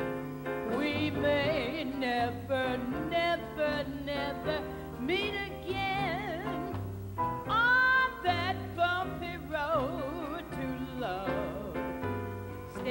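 A woman scat-singing jazz over a walking double bass: fast runs of wordless syllables with swoops and vibrato, rising to a loud, high held note about eight seconds in.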